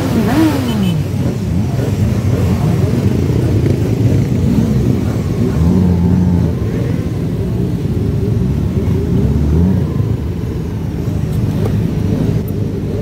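A large group of motorcycles, many of them sport bikes, running at low speed together, with engines revving and easing off so that their pitches rise and fall over one another. One rev drops sharply about half a second in.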